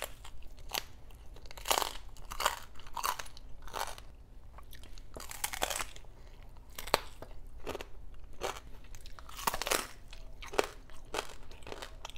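Crispy skin of deep-fried pork belly (lechon kawali) crunching as it is bitten and chewed, close to the mouth: a run of sharp, irregular crunches.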